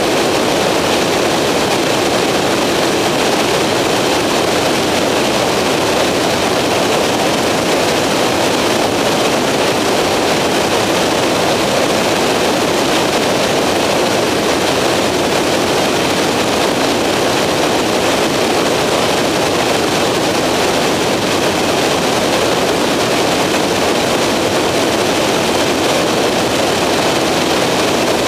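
Skyranger microlight's engine and propeller running steadily in cruising flight, heard from on board as a constant, loud, rushing drone.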